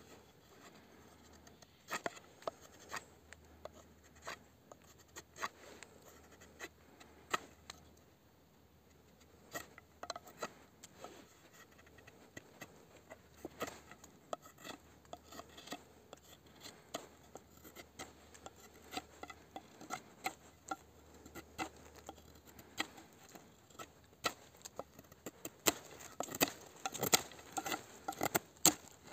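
Tonife Nova fixed-blade knife (8Cr14MoV drop-point blade) slicing through a hanging sheet of paper, repeated crisp cuts and paper crackles at an irregular pace. The cuts come thicker and louder near the end.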